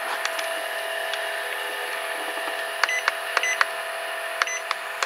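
Chillz Pro portable fan running with a steady hum. From a little under three seconds in come several short clicks, some in close pairs, as its base buttons are pressed to try the mist setting.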